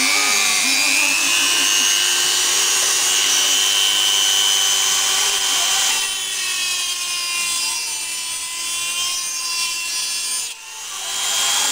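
Dremel rotary tool running at high speed and grinding through a piece of metal, a steady high whine that changes as it bites into the metal about halfway through. It stops briefly near the end and starts up again.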